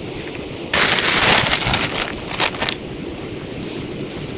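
Heavy rain falling steadily. Just under a second in there is a sudden loud rush of hiss lasting about a second, followed by a few short crackles.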